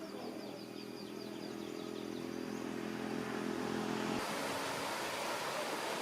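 Motorbike engine humming steadily and growing louder, with faint bird chirps over it. About four seconds in, it cuts off abruptly to a steady rushing noise.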